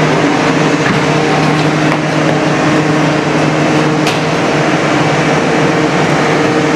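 Steady, loud mechanical drone: a low hum with a rushing noise over it, like a ventilation fan or a running engine, with one light click about four seconds in.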